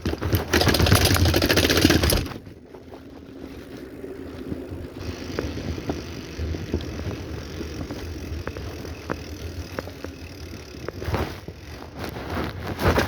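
A bicycle being ridden, with the noise of tyres rolling and parts rattling. It is loud for the first two seconds, then a quieter steady run with scattered sharp ticks, then loud again near the end.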